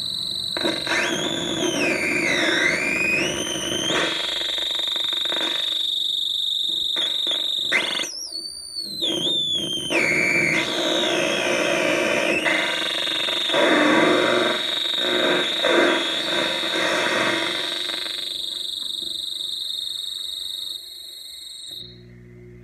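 Touch-played DIY noise synthesizer, an Atari Punk Console–style circuit with built-in echo/delay, squealing over a bed of static. High whistling tones swoop down and back up and waver as the fingers move on the pads. Near the end the sound drops to a quieter buzz.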